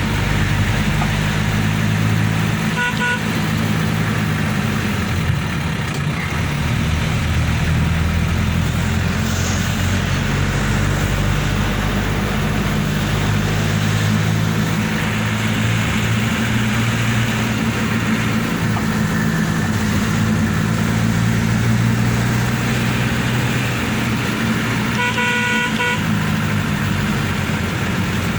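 Motor vehicle engine running steadily under load on an off-road track, its low drone shifting slowly in pitch. Short beeping tones sound about three seconds in and again near the end.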